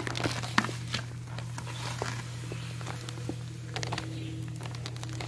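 Granulated sugar poured from its bag into hot water in a plastic 5-gallon bucket: a hissing, crackling patter of falling sugar and rustles of the bag, densest in the first second. A steady low hum runs underneath.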